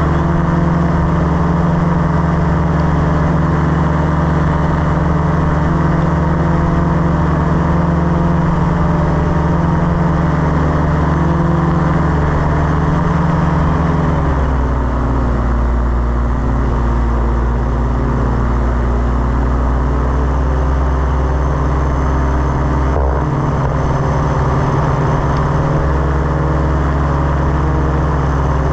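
Paramotor trike's engine and propeller running steadily in flight, a loud continuous drone; the engine note drops in pitch about halfway through and holds lower.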